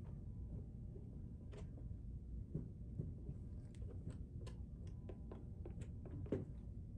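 Palette knife dabbing and dragging thick oil paint on a canvas: faint, irregular taps and short scrapes over a low, steady room rumble.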